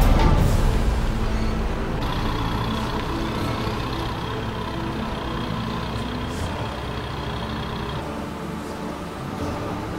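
Heavy diesel engines running steadily: the Manitou telehandler's engine as it lifts and places bulk bags, then a lorry's engine. The sound changes abruptly about two and eight seconds in.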